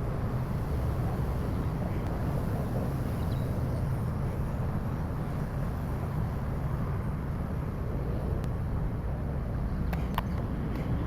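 Steady outdoor rumble with no distinct pitch, heaviest in the low end, and a few faint clicks near the end.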